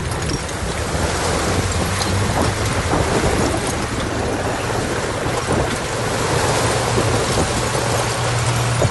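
Heavy diesel earthmoving machinery running steadily: a constant low engine hum under a rough, rumbling noise with scattered clicks and crackles.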